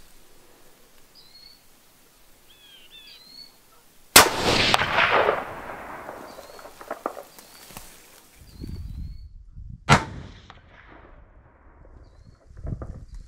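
.270 hunting rifle fired once about four seconds in, a single loud crack with a long rolling echo. Small birds chirp before the shot. A few seconds after it come low knocks and rustling and one sharp click.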